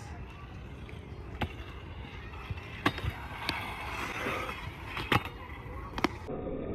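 Stunt scooter wheels rolling over smooth concrete in a skatepark bowl, a steady rumble broken by about five sharp clacks.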